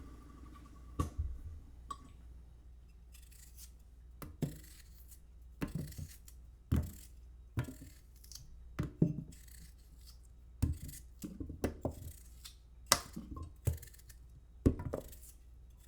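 Irregular sharp clicks and clinks, about fifteen spread unevenly with quiet between, like small hard objects being handled. No disposal motor is running.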